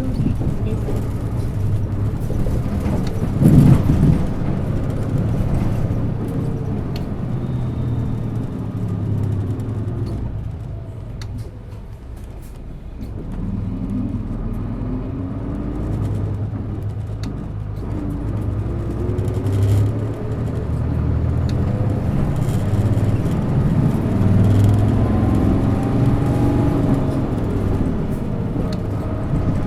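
Isuzu Erga city bus's diesel engine pulling hard, its revs climbing again and again as the bus accelerates. There is a loud thump about three and a half seconds in, and the sound eases briefly around twelve seconds in.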